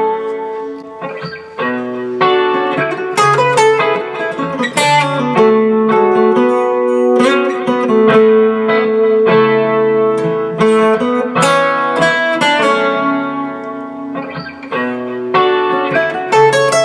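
Steel-string acoustic guitar played fingerstyle: plucked chords and melody notes ringing out in a continuous flowing passage.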